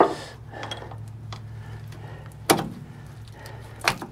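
Sharp metallic clicks and knocks of a greasy steel roller chain and its links being handled and fitted by hand, three loud knocks among fainter ticks, over a steady low hum.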